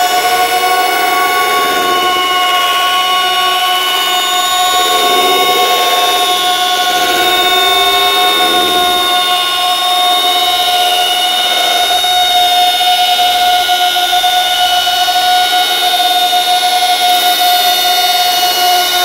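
A loud sustained drone of several steady tones held together, the strongest a mid-high tone, with lower tones slowly wavering beneath.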